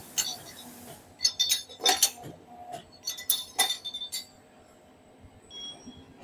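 Metal clinking from a TDF flange clip cutter: small sheet-steel clips clatter against each other in a quick run of sharp, ringing clinks, thinning out after about four seconds.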